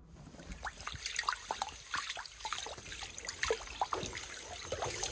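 Water and slush in an ice-fishing hole trickling and splashing as a hand works in it, with many small irregular clicks and little bubbling drips.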